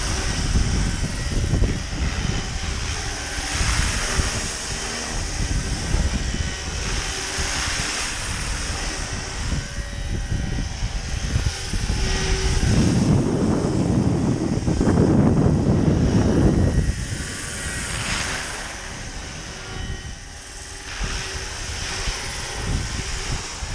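Roban 700-size Black Hawk RC scale helicopter flying, the whine of its rotors rising and falling as it moves. Wind buffets the microphone, heaviest in a long gust around the middle.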